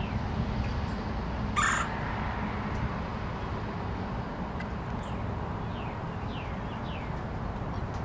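Male red-bellied woodpecker giving one short, harsh call about a second and a half in, over a steady low rumble.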